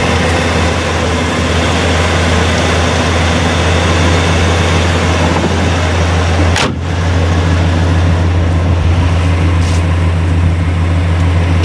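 Vehicle engine idling steadily, a low even hum. About seven seconds in it breaks off for an instant, and a similar steady idle carries on.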